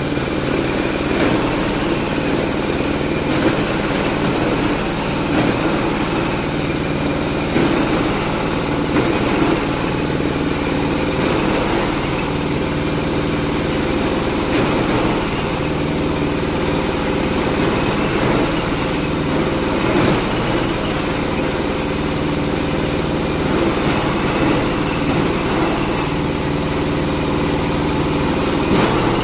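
Jumbo Type-SM60 cocopeat grinding machine running with a steady engine drone, with a few brief louder knocks now and then.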